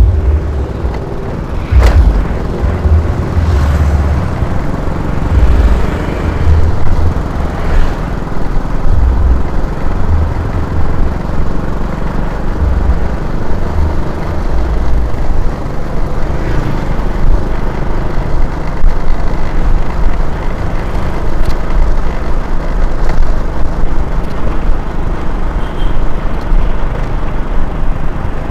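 Riding a motor scooter: wind buffeting the microphone in uneven low gusts over the scooter's running engine and road noise, with a sharp click about two seconds in.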